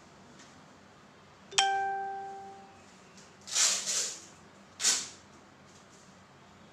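A single bell-like ding that rings out and fades over about a second, then two short bursts of rustling and snapping from disposable gloves being pulled on.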